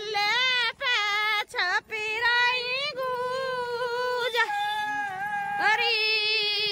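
A woman singing a traditional Hindi folk song for a child's birth ceremony, unaccompanied and high-pitched, with long drawn-out held notes near the middle and at the end.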